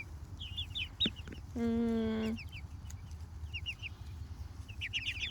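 Young Jersey Giant meat chickens peeping: quick, high, downward-sliding peeps in clusters, with a pause about a second in. About a second and a half in, a steady low hum lasts just under a second.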